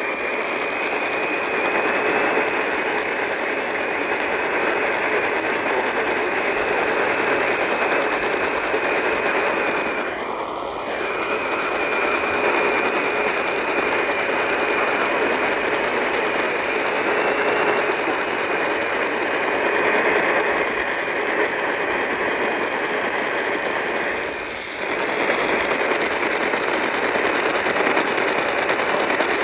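Steady hiss of static from a weakly received radio signal, narrow and muffled in tone, with faint steady tones under it. The hiss dips briefly about ten seconds in and again near 25 seconds.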